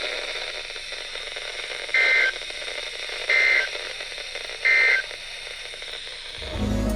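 Weather radio receiver hiss, broken by three short, loud two-tone digital data bursts about 1.3 seconds apart: the Emergency Alert System end-of-message signal closing the severe thunderstorm warning. Music comes in near the end.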